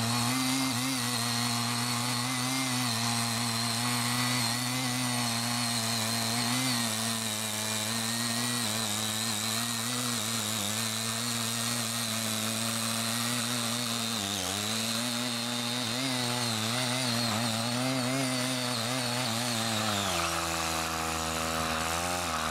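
Small petrol engine of a light-duty mini tiller running at high revs while its tines work the soil between tea rows. The engine sags briefly in pitch about two-thirds of the way through, then drops to a lower, steady idle near the end.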